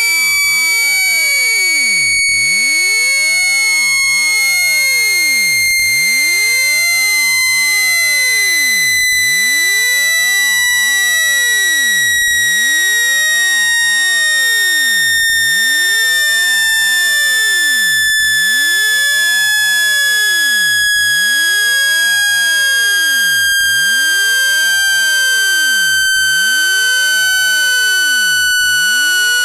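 Synthetic water-eject test tone: one loud, steady, buzzy electronic tone with overtones, sliding slowly and evenly down in pitch. It is played to shake trapped water out of a phone speaker.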